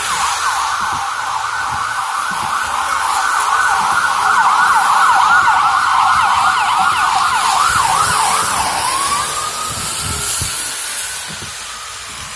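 Ambulance siren on a fast yelp, quick up-and-down sweeps about three a second, growing louder; about eight and a half seconds in it switches to a slower wail and fades as it passes.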